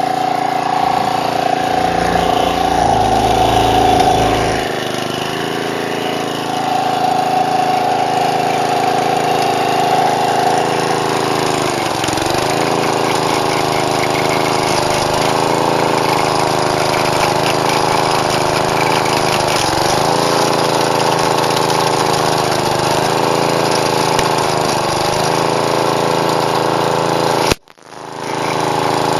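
Small gas engine of an edger converted into a stump grinder, running at working speed while its blade grinds a tree stump; the engine note sags and recovers a few times as the blade takes load. The sound cuts out briefly near the end, then resumes.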